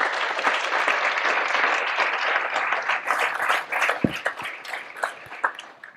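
Audience applauding: a dense wash of clapping that thins after about three seconds into scattered separate claps and dies away near the end.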